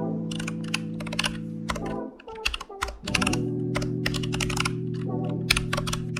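Rapid typing on a computer keyboard, irregular clicking keystrokes, over background music. The music drops away about two seconds in and a new track starts about a second later, while the typing carries on.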